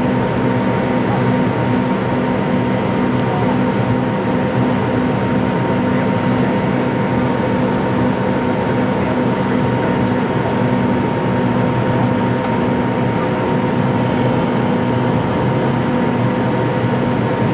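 Cabin noise inside an MD-82 airliner climbing after takeoff: its rear-mounted Pratt & Whitney JT8D turbofans running steadily at climb thrust, with rushing air and a few steady hum tones.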